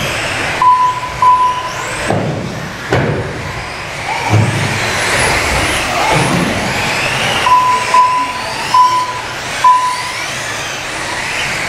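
Radio-controlled off-road race cars' motors whining, rising and falling in pitch as they accelerate and brake around the track. Short beeps of a lap-timing system sound about a second in and several times near the end, with a few dull thumps in between.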